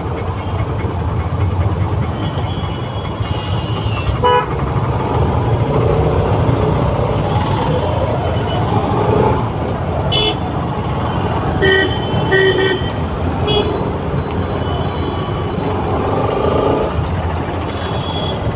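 Busy street traffic: a steady low rumble of engines and road with several short vehicle horn toots, two of them in quick succession midway.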